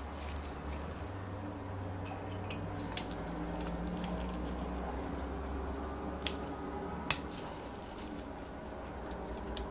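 Small metal clicks and taps as a model engine's crankcase is handled and a hex driver is worked onto a connecting-rod screw. A few sharp clicks stand out, the loudest about seven seconds in, over a steady low hum.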